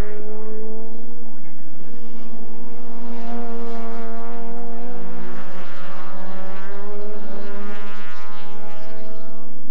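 Engines of several race cars, Mazda RX-7s among them, running hard on track, their engine notes slowly rising and falling in pitch as they battle through the corners.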